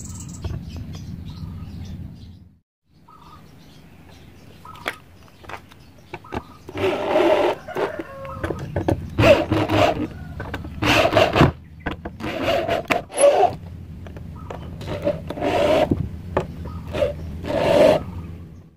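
Power drill driving screws into the plywood lid of a speaker box: a series of about seven short whirring bursts, each a screw being run in, with clicks of screws being handled before them.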